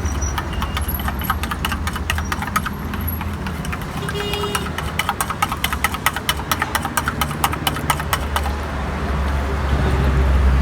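Rapid chopping clatter, a metal blade or spatula striking a hard cooking surface several times a second, over a steady low traffic rumble.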